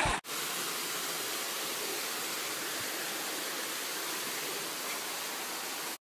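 Steady, even rush of a jungle waterfall and its stream, with no other sound standing out.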